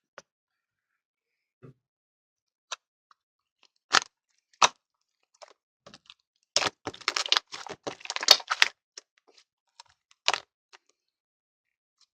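Slime being handled and pressed, giving scattered sharp pops and clicks, with a dense run of crackling in the middle.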